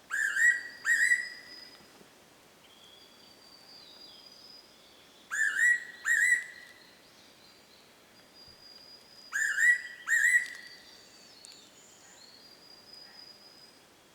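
Fairy pitta singing its two-note whistled song, given three times about four to five seconds apart.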